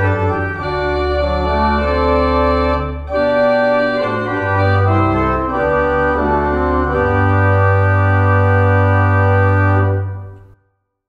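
Organ playing slow, sustained chords over a moving bass line, ending on a long held chord that dies away near the end.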